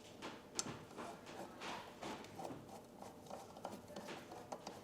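Cast-iron sole of a Diamond Edge hand plane rubbed back and forth on sandpaper wet with WD-40 to flatten it: a faint scraping hiss in repeated strokes, with light clicks between them.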